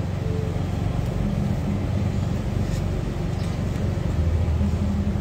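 Steady low hum of an idling engine, running evenly without change.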